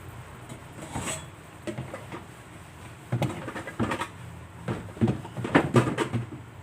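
Kitchen clatter: a run of irregular knocks and clanks, as of cookware and utensils being handled, busiest in the second half, over a low steady hum.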